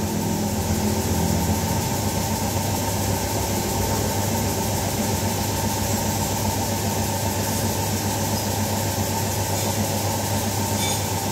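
A steady low machine hum that holds the same level throughout, with a faint short tick near the end.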